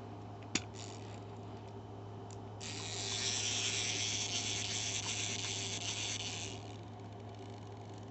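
Clockwork spring motor of a wind-up robot dog toy, gears and ratchet whirring steadily for about four seconds, after a single sharp click about half a second in.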